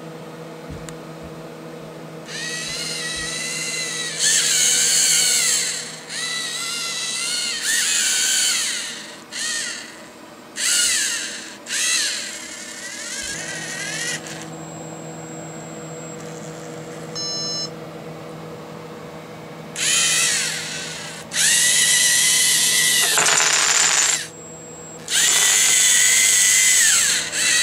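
Robot electric motors whining through their gearing in a series of bursts of one to three seconds, the pitch sliding up and down as they start, run and stop. A steady low electrical hum runs underneath.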